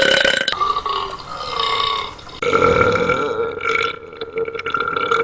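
Long, drawn-out burps, one after another, each held for a second or more. The sound cuts abruptly to a new burp about half a second in and again near the middle.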